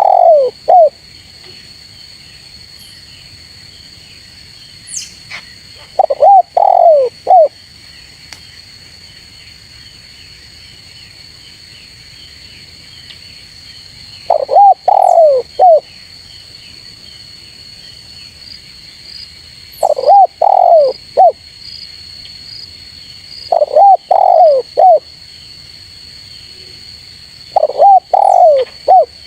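Spotted dove cooing: about six loud phrases of three or four short, low coos each, spaced several seconds apart, over a steady high drone of insects.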